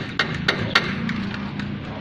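Hammer striking metal about three times a second on the rear suspension while the shock absorber is being freed. The strikes stop a little under a second in, leaving low steady tones of background music.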